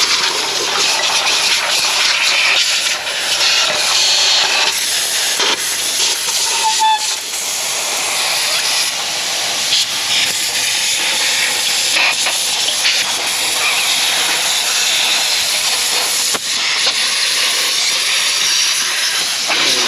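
A pressurised jet hissing loudly and steadily, with a few brief dips, as debris from the old gasket is blasted off the aluminium oil pan of a Northstar V8.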